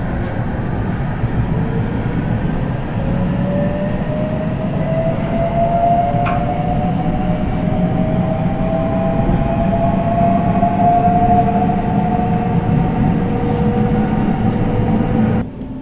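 JR West 521 series electric multiple unit pulling away from a station, heard from inside the car: the inverter-driven traction motors whine in several tones that rise slowly as it gathers speed, over the low rumble of the running gear. There is a single sharp click about six seconds in, and the sound cuts off just before the end.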